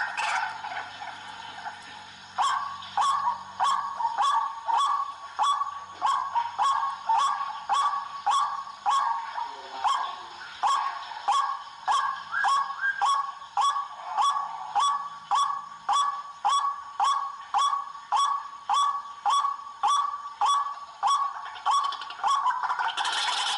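White-breasted waterhen (ruak-ruak) calling: a long, steady series of repeated calls, about two a second, starting about two seconds in.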